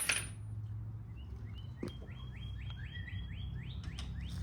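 A bird repeating a short rising chirp about three times a second, starting about a second in, over a steady low hum from the small generator engine running. A sharp click sounds at the very start.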